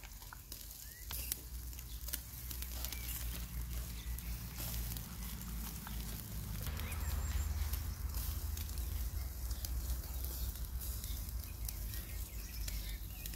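Meat sizzling and fat crackling on a wire grill basket over a charcoal fire, a steady hiss scattered with fine pops. A low rumble underneath grows louder through the middle.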